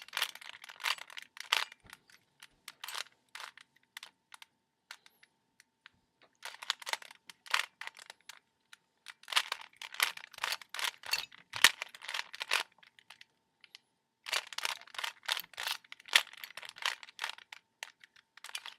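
Rubik's Cube layers being twisted by hand: quick plastic clicking and clacking in three spells of a few seconds each, with short pauses between.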